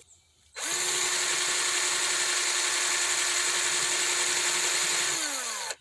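Small electric power tool switching on, running steadily and abrading the old tip of a soldering iron to take off old solder and pitting. Near the end its pitch falls as it spins down.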